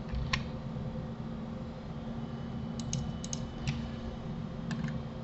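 Scattered clicks of a computer mouse and keyboard: a single click just after the start, a quick run of four clicks around three seconds in, then a few more. Under them runs a steady low hum.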